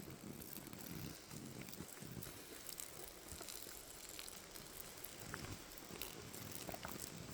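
Faint outdoor background noise with a low rumble and a few soft clicks.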